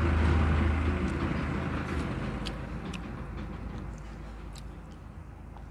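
A passing motor vehicle's engine rumbles loudest at the start and fades away over the next few seconds, with a few faint clicks of chewing on top.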